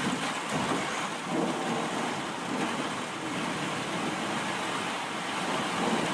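Steady rain in a thunderstorm, an even hiss that swells gently, with thunder rumbling under it.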